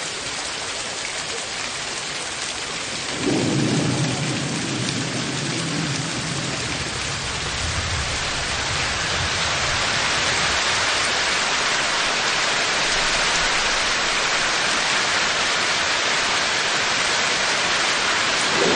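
Rain and thunder: a steady hiss of heavy rain with a low rolling rumble of thunder starting about three seconds in and dying away over several seconds, the rain growing slightly louder later on, and another rumble starting right at the end.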